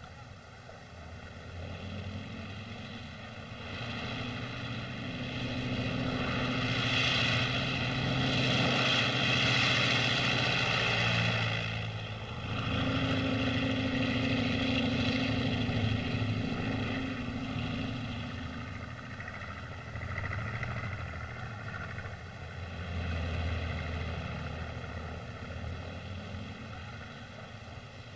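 A droning engine sound that swells and fades twice, loudest about eight to ten seconds in and again around thirteen to sixteen seconds, then settles lower.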